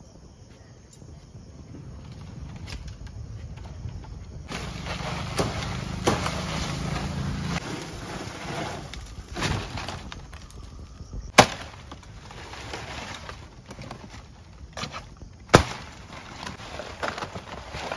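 Palmyra palm fan leaves rustling and scraping as they are cut and handled, loudest from about four to eight seconds in. Two sharp cracks of leaf stalks snapping come about eleven and fifteen seconds in.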